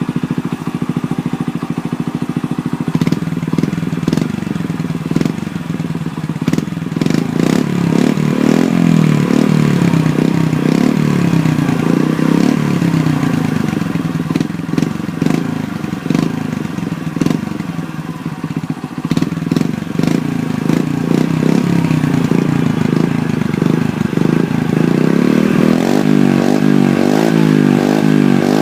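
Exhaust of a bored-up Honda Little Cub's small single-cylinder four-stroke engine through a Takegawa Bomber aftermarket muffler. It idles steadily for about three seconds, then is revved up and down again and again, with quicker throttle blips near the end.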